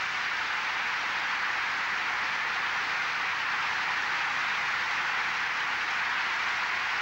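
Large audience applauding: dense, steady clapping that holds level throughout.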